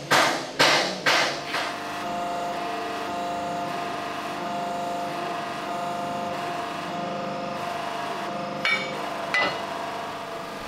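Hammer blows on a steel wheel hub, about two a second with a metallic ring, ending after three strikes in the first second and a half as parts are knocked out of the old hub. A steady hum with several tones follows, and two sharp knocks come near the end.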